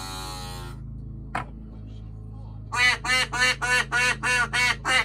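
Duck quacking: one drawn-out quack at the start, then a quick run of about eight short quacks, roughly three a second, in the last two seconds. A steady low electrical hum runs underneath.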